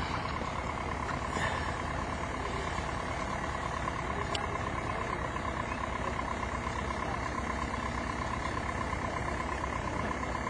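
Heavy diesel engine running steadily, with a rapidly pulsing higher tone riding on top.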